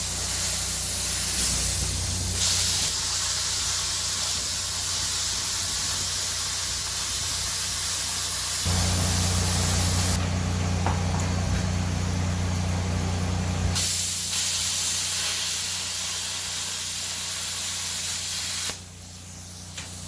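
Steady rushing hiss that changes in tone abruptly several times, dipping briefly near the end.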